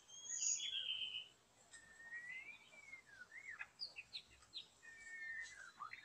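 White-rumped shama singing: a run of varied clear whistled phrases that slide up and down, loudest in the first second, with short sharp notes around the middle.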